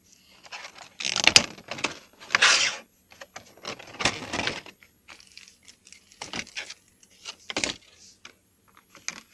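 Stiff clear plastic packaging tray being handled, giving irregular crackles and sharp clicks, with a few louder bursts.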